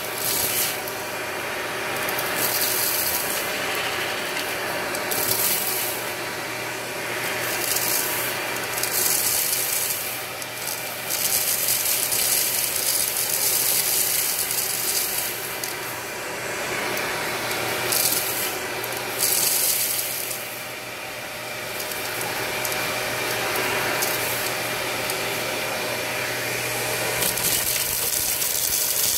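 Dyson Ball Multifloor vacuum running through its wand nozzle, sucking up rice, candy and rhinestones from carpet: a steady motor hum under a continuous crackling rattle of grains and stones rushing up the hose, louder and quieter by turns as the nozzle moves through the piles.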